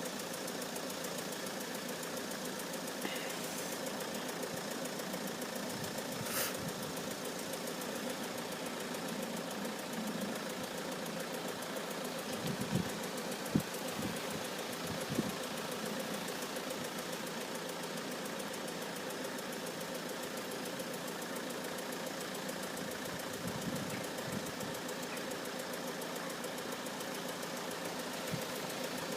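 Level crossing warning alarm sounding continuously as a rapid repeating tone, not quite right: the alarm is a little dodgy, improved from an earlier fault but still not sounding perfect. A few short knocks are heard in the middle.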